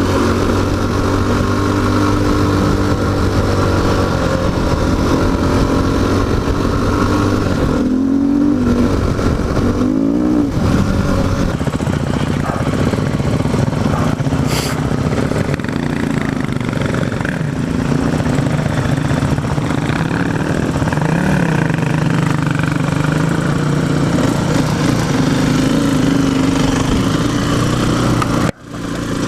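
Single-cylinder four-stroke dirt bike engine running under way, heard up close, with its note dropping and climbing again twice about eight and ten seconds in as the rider shifts and rolls on the throttle. Near the end the sound cuts out for an instant.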